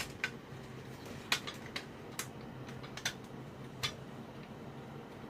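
Irregular light clicks and taps, about eight in all and mostly in the first four seconds, from a small tool working at a heavily corroded part inside an RC helicopter's controller.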